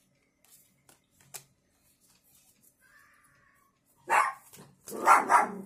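Pet dog barking aggressively: a couple of loud barks near the end, after a few seconds of faint card-handling ticks.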